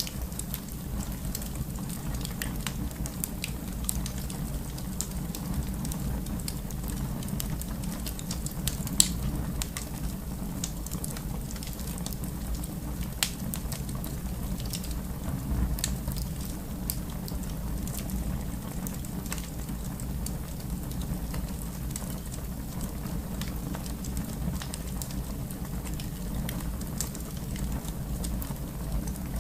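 Wood fire burning in a fireplace: a steady low rumble with scattered sharp crackles and pops, the loudest pop about nine seconds in.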